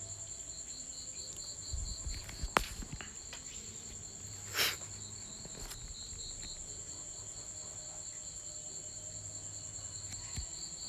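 Steady high-pitched insect trilling, a fast pulsing chirp that goes on without a break. A few sharp clicks come about two and a half seconds in, and a short rustle comes just after four and a half seconds.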